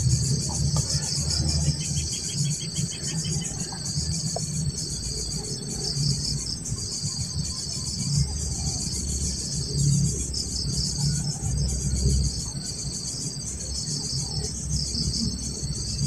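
Insects chirping in a steady chorus that pulses about once a second, over a low, uneven rumble.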